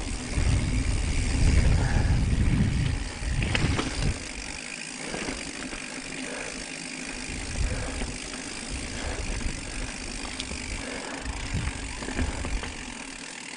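Mountain bike rolling along a dirt singletrack: tyre noise and small rattles, with wind rumbling on the microphone. The rumble is heavy for the first four seconds or so, then eases.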